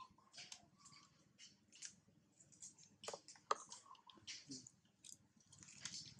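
Faint, scattered clicks and crackles of a macaque handling a cardboard snack box and eating, with one sharper tap about three and a half seconds in.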